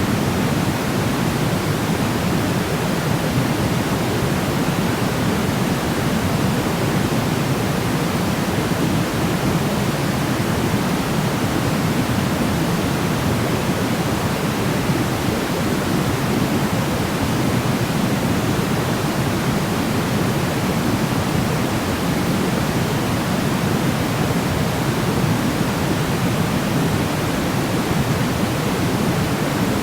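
Steady sleep noise: an even, unbroken hiss, deeper and fuller than a thin white hiss, with no change in level or pattern.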